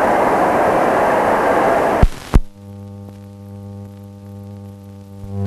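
Blank soundtrack of a silent newsreel: a loud hiss that cuts off with two sharp clicks about two seconds in, followed by a steady electrical mains hum.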